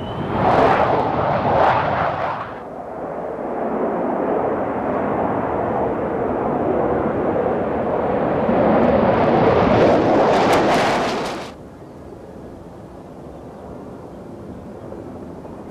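McDonnell Douglas F-4 Phantom II's twin jet engines at takeoff power as it lifts off and climbs away: loud jet noise, strongest in the first two seconds, then steady and building, with crackling before it cuts off abruptly about eleven seconds in. A quieter steady background follows.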